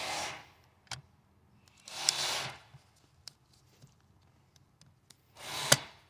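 Small clicks of plastic and metal as a 2016 Honda Civic seatbelt retractor's spring cover is worked into place by hand, with a sharp, louder click near the end as the spring engages. Slow breaths out come between the clicks.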